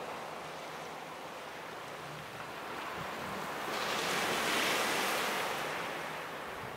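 Small waves breaking and washing on the shore as a steady hiss, with one swell of surf building about three and a half seconds in and easing off near the end.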